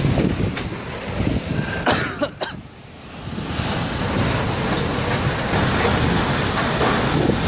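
Typhoon wind gusting and rushing over the microphone, dropping away briefly about two and a half seconds in, then rising to a steady roar.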